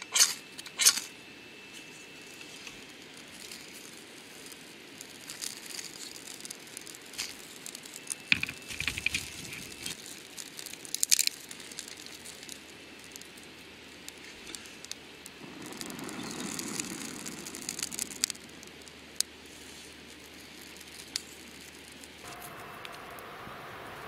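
A ferrocerium rod scraped hard against a steel shovel blade, two quick rasping strikes in the first second throwing sparks onto birch bark. Then the light crackling, snapping and rustling of small dry twigs being fed onto the newly lit kindling.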